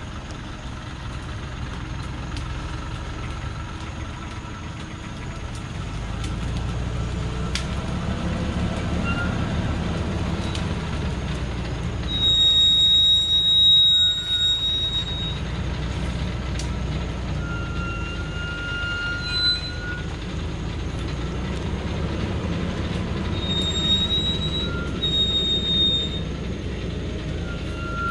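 Heavily loaded Thaco Foland truck creeping down a steep dirt track: its diesel engine runs with a low rumble while the brakes squeal in long, steady high-pitched tones, loudest about halfway through and again several times near the end.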